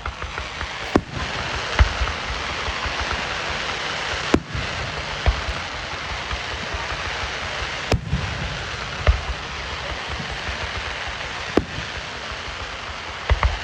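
Fireworks going off: a steady, dense crackling hiss, broken by about seven sharp bangs at irregular intervals.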